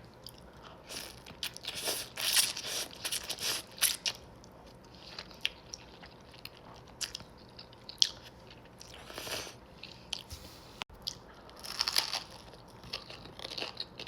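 Close-up eating sounds: a person biting and chewing, with irregular wet mouth clicks and a few louder noisy bursts, a cluster about two to four seconds in and another near twelve seconds.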